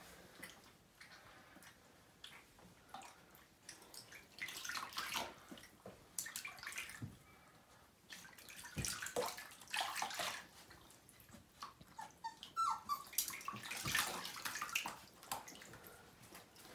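Shallow bathwater splashing in irregular bursts as hands scoop it over a Siberian husky puppy and the puppy paddles in the tub.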